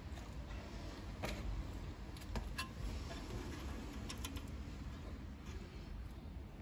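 A few faint, light metallic clicks and taps as small steel nuts and washers are handled and fitted by hand onto the knuckle arm studs, one click ringing briefly, over a low steady background rumble.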